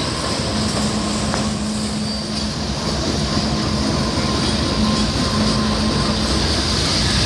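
BNSF diesel freight locomotives running past at close range: a continuous rumble of the moving train with a steady low engine hum.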